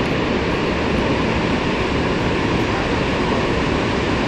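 Large waterfall on the Yellowstone River: a steady, heavy rush of falling water with a deep rumble underneath.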